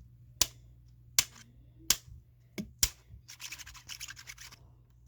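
Plastic puzzle cube being turned: a few separate sharp clicks of single layer turns, then, from about three seconds in, a fast run of clicking and rattling as the layers are spun quickly.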